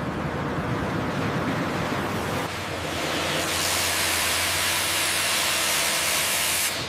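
Sawmill machinery running with a steady rumbling noise, joined about halfway in by a loud, even hiss that cuts off abruptly near the end.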